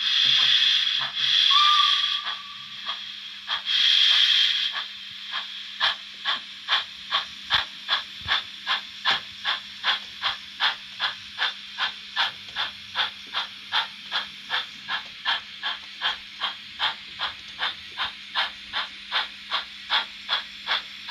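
DCC sound decoder in a 00 gauge model saddle-tank steam locomotive, playing through its small speaker. For the first few seconds it gives loud steam hissing, then steady, evenly spaced exhaust chuffs at about two to three a second as the engine runs along, over a faint steady hum.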